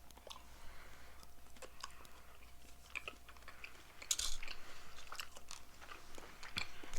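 Chocolate being eaten, small Hershey's Kisses: scattered short biting and chewing clicks, with a louder patch about four seconds in.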